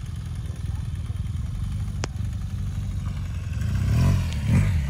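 BMW R1250GS Adventure's boxer-twin engine running at low revs as the bike moves slowly over dirt, with two short bursts of throttle near the end.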